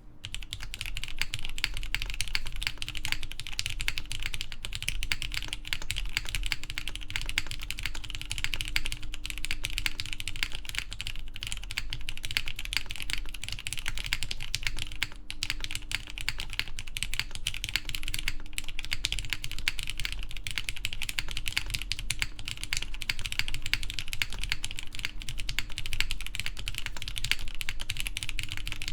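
Continuous typing on a Matrix 8XV3.0 mechanical keyboard with lubed Cherry MX Black clear-top linear switches, GMK keycaps and an aluminium plate: a steady, dense stream of key clacks that starts abruptly.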